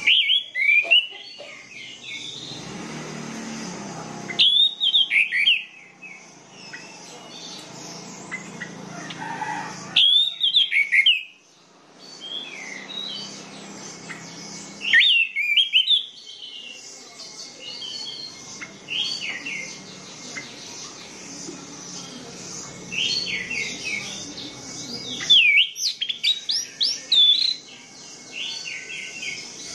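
Orange-headed thrush singing: loud bursts of quick, sweeping whistled notes every few seconds, with softer chirping between the bursts.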